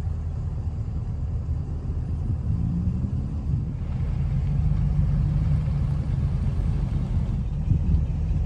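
Engine of a 1973 Dodge B300 Minnie Winnie motorhome rumbling as it drives up and pulls to a stop close by, getting louder as it approaches.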